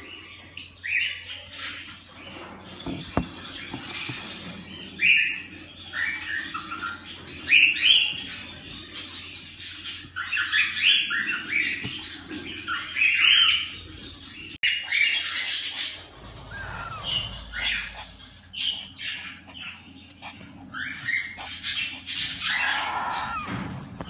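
Cockatiel chicks in a nest box calling, short repeated calls that come in irregular bunches.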